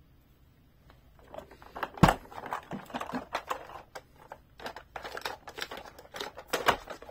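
Hard plastic body of a Matchbox Action Drivers transforming excavator toy handled and turned over in the hands: irregular plastic clicks, knocks and rubbing, with one sharp knock about two seconds in.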